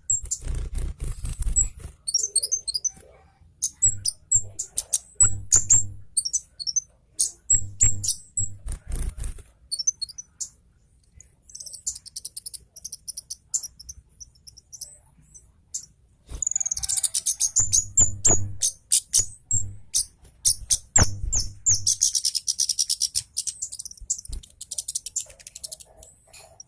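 Scarlet-headed flowerpecker (cabe jawa) singing in bursts of rapid, sharp, very high chips and twittering trills, with quiet gaps between the bursts. Low thumps recur between the bursts.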